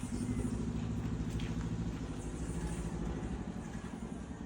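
Low, steady motor-vehicle engine rumble, strongest over the first couple of seconds and then easing off.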